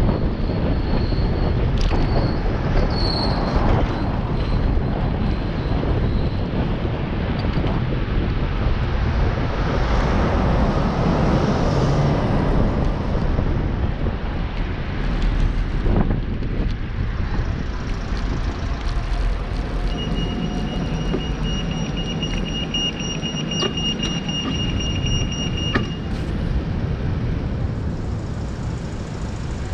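Steady road traffic noise heard while riding a bicycle through city streets, a dense rumble and hiss with wind on the microphone. In the last third a high, steady whine sounds for about six seconds and then stops.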